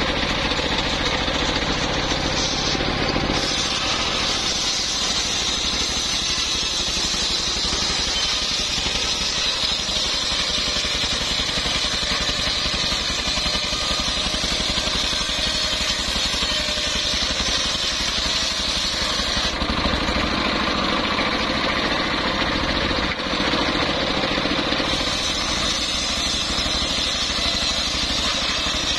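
Homemade engine-driven table circular saw ripping a log lengthwise: the engine runs steadily under load while the big blade cuts through the wood with a continuous high whine. Its tone shifts for a few seconds about twenty seconds in.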